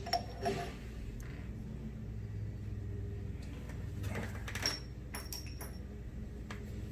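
Scattered light metallic clicks and clinks of hand tools and parts being handled while the knee shaft of a milling machine is unscrewed and pulled out, over a steady low hum. The clearest cluster of clicks comes a little past the middle.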